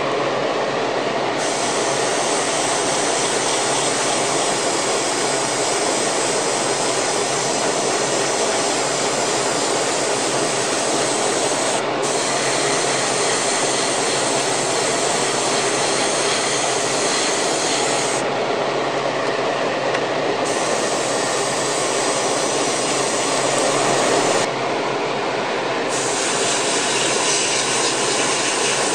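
Steady rushing noise of a hobby spray booth's exhaust fan together with an airbrush spraying paint. The airbrush hiss thins out briefly twice, about two-thirds of the way in and again a few seconds later.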